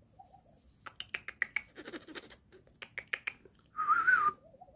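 Small curly-coated dog whining: one high, wavering whine of about half a second near the end, with faint short whimpers at the start and end. Before it comes a run of quick sharp clicks.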